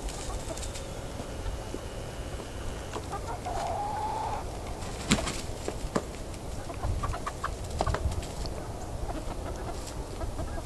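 Barred Rock and Wyandotte hens clucking, with one drawn-out call about three and a half seconds in. A sharp click comes about five seconds in, and lighter clicks follow.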